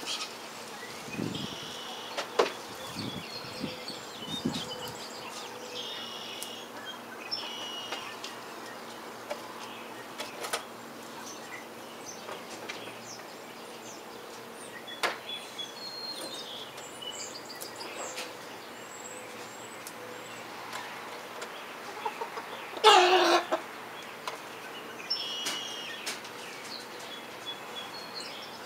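Backyard chickens clucking and calling, with small high chirps scattered throughout. About three-quarters of the way in comes one short, loud call, a juvenile rooster trying to crow.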